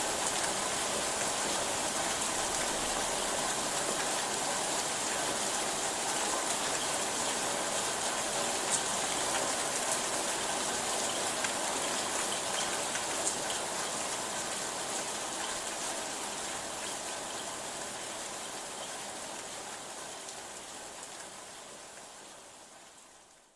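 Steady rainfall: an even hiss with a few drop ticks, fading out gradually over the last several seconds until it stops.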